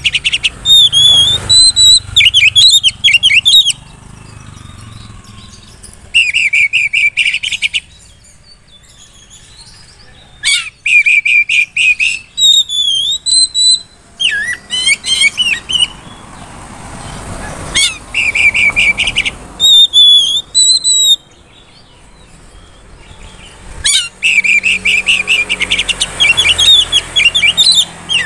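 Oriental magpie-robin (kacer) singing loudly in bursts: fast chattering runs of repeated notes alternate with clear whistled phrases that glide up and down, with short pauses of a couple of seconds between bursts. It is the vigorous, varied full song ('gacor', 'bongkar isian') that kacer keepers prize.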